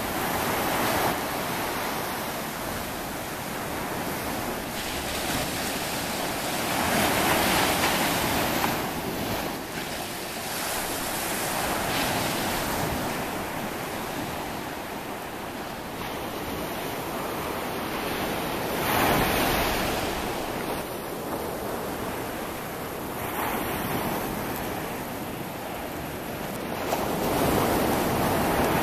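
Ocean surf breaking on a sandy beach: a steady wash of noise that swells each time a wave breaks, roughly every five to eight seconds.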